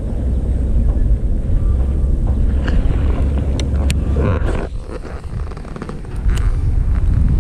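Wind buffeting the microphone with a steady low rumble. Small clicks of a baitcasting reel are heard a few seconds in, then a short swish of the rod being cast at about four seconds.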